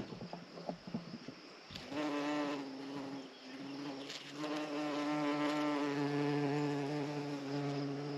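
A flying insect buzzing close by, a steady hum that sets in about two seconds in, dips briefly around three seconds and then holds stronger to the end.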